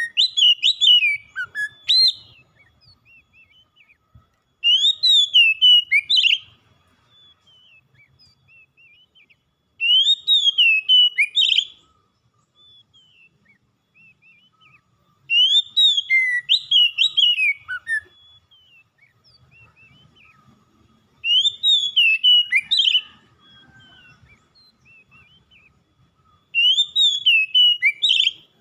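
Oriental magpie-robin singing: a phrase of loud, sliding whistled notes about two seconds long, repeated about every five and a half seconds with pauses between.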